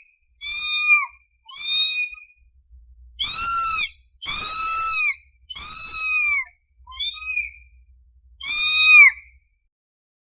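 Young kitten meowing repeatedly, seven high-pitched calls in a row, each rising then falling in pitch: a hungry kitten calling for its mother.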